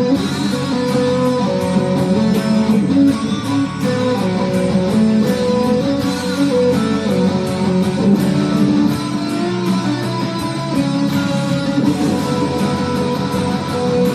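Guitar music: a guitar playing a melody of plucked, held notes.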